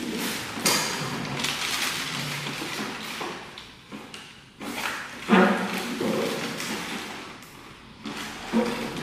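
A small motorcycle's engine running while the bike is walked and turned by hand, with uneven thumps and scuffs. The loudest knock comes about five seconds in, and another near the end.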